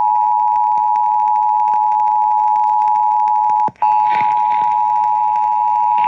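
Emergency Alert System attention signal on a radio broadcast: a steady, loud two-tone alert (853 and 960 Hz sounding together). It cuts out for a split second a little over halfway through, then carries on.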